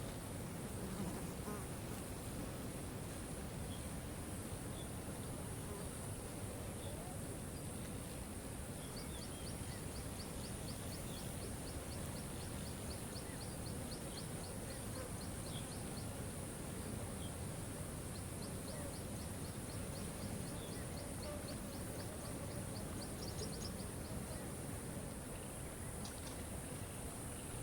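Waterfall water rushing steadily, with a constant high hiss over it. Twice, for several seconds each, a quick, even run of high ticks sounds above the water.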